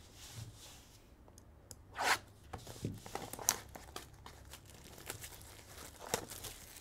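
Plastic shrink-wrap being torn and crinkled off a trading-card hobby box: irregular crackling with short tearing rips, the loudest about two seconds in and again a little later.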